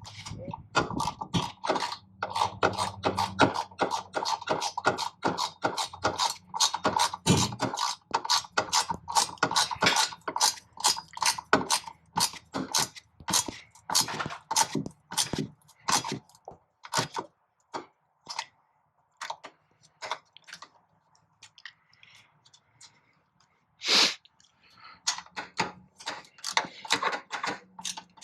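Socket ratchet clicking in quick repeated strokes as bolts are tightened down, about two to three clicks a second, thinning out partway through, with one louder knock near the end.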